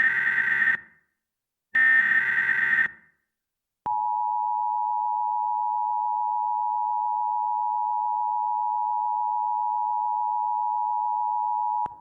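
Emergency Alert System SAME header: the tail of one digital data burst and then a second full burst, each about a second long, followed about four seconds in by the EAS attention signal, a steady two-tone (853 and 960 Hz) held for about eight seconds and cut off at the end. It marks the start of a new emergency alert activation.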